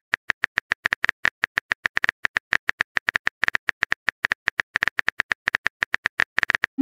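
Simulated keyboard typing clicks from a texting-story app: a rapid, even stream of short clicks, about seven a second, as a message is typed out letter by letter.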